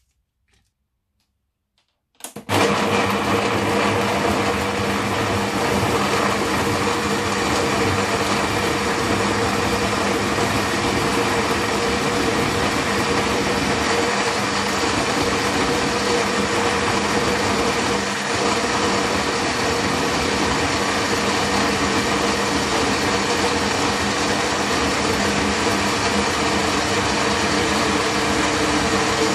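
Countertop blender switching on about two seconds in and running steadily at full speed, puréeing a jar packed with red chillies and garlic into paste. Its motor hums with a steady tone under the dense whirr of the blades.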